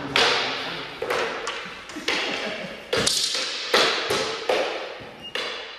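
Wooden singlesticks clacking in a sparring exchange: about seven sharp strikes, irregularly spaced, each ringing briefly in an echoing hall.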